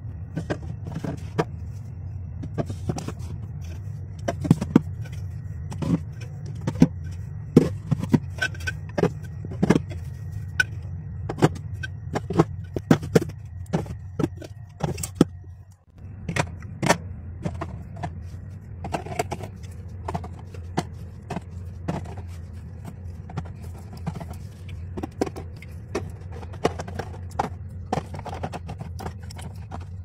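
Drink cans and bottles being set into a mini fridge's shelves and door racks: a quick, irregular run of knocks, clinks and plastic rattles over a steady low hum.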